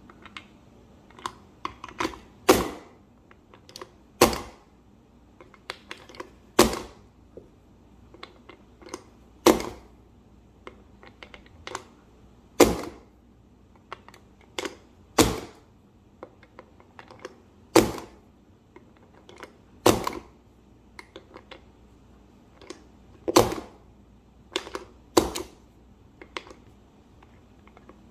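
Plastic Ludex speed loader pressing .40 rounds one at a time into a Glock magazine: a sharp clack every two to three seconds as each round is pushed down and seats, with lighter clicks of handling in between.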